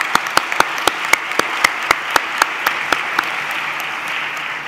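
Audience applauding, with one person's sharp hand claps close to the microphone, about four a second. The close claps stop a little past three seconds in while the applause carries on.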